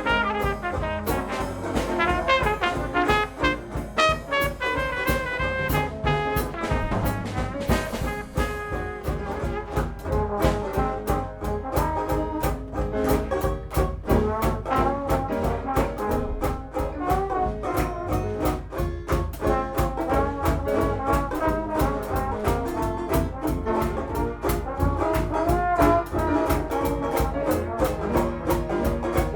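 Dixieland jazz band playing live: trumpet over banjo, piano and drums, with a steady, evenly spaced beat throughout.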